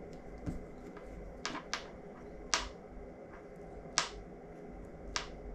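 About six short, sharp clicks at uneven intervals, the loudest two about two and a half and four seconds in, over a steady low hum.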